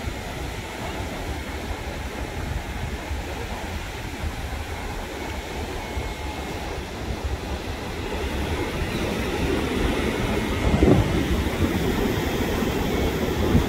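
Ocean surf breaking on a sandy beach, mixed with wind rumbling on the microphone; it grows louder in the second half, with one sharper thump about eleven seconds in.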